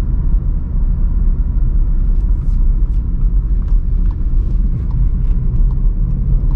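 Inside the cabin of a 2018 Skoda Octavia with a 1.4-litre engine, driving on the road in sport mode: a steady low rumble of engine and road noise.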